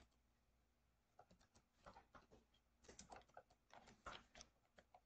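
Faint computer keyboard typing: irregular clusters of key clicks, starting about a second in.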